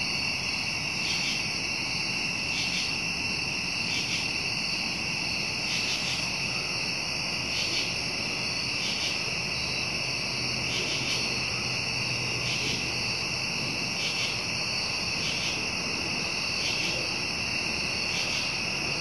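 Crickets chirping: a steady high-pitched trill with a regular pulse a little faster than once a second.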